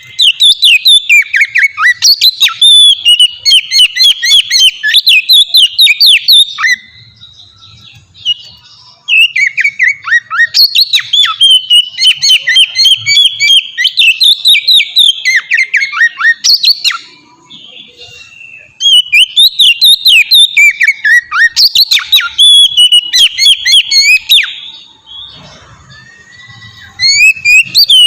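Oriental magpie-robin (kacer) singing loud, rapid phrases of varied whistles and chattering notes, in long bouts broken by pauses of a few seconds.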